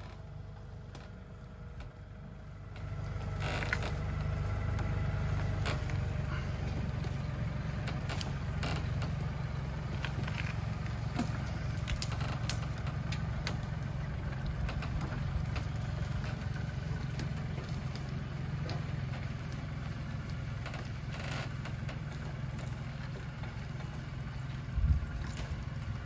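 Low engine of the vehicle dragging an elevated ground blind, running steadily and growing louder about three seconds in as it takes up the load. Scattered short clicks and knocks sound over it, with a heavier thump near the end.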